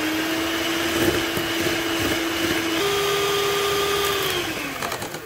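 Electric hand mixer running, its beaters whipping eggs and sugar in a glass bowl. The motor's steady whine steps up in pitch about halfway through, then winds down and fades near the end.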